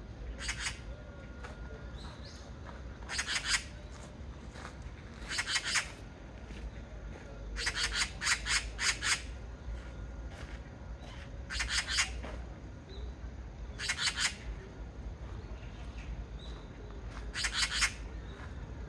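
Oriental magpie (Pica serica) giving its harsh chattering call: short bursts of a few rapid notes every two to three seconds, with a longer run of about six notes near the middle.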